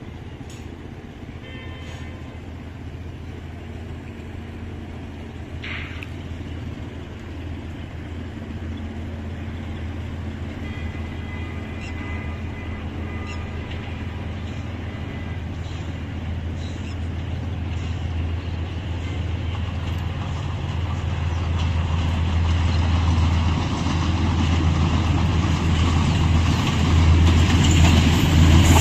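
Diesel locomotive hauling a tank-wagon freight train, its engine's low steady hum growing steadily louder as the train approaches.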